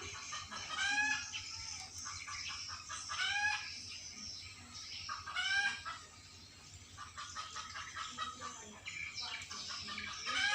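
A jalak (starling) calling: three loud, arching calls about two seconds apart, then quicker, softer chattering notes.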